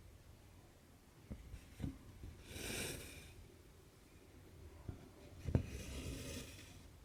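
Cross-stitching by hand on cotton Aida fabric: the needle taps as it pierces the cloth, then the cotton thread swishes as it is drawn through. This happens twice, with the two stitches about three seconds apart.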